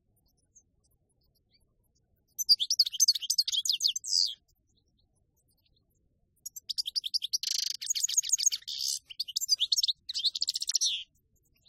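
European goldfinch singing its rapid, high twittering song in two bursts: a short phrase about two seconds in, and a longer one from just past the middle almost to the end.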